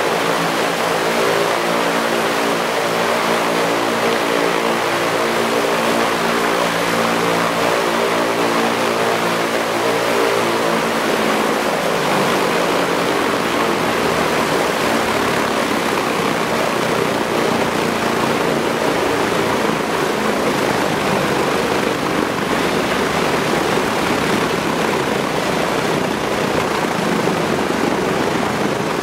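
Engine sound of a Fairchild C-119 Flying Boxcar's twin radial piston engines running with the propellers turning, played by the scale model's built-in sound system. For about twelve seconds it is a steady, even drone, then it turns rougher and noisier.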